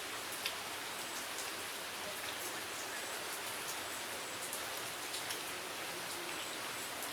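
Steady rain falling: a constant hiss with scattered single drops ticking.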